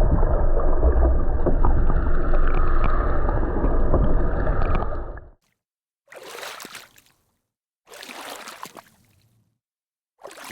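Sportfishing boat under way: steady engine rumble mixed with wind and water noise, which cuts off abruptly about five seconds in. After that come a few short, separate bursts of water noise with silence between them.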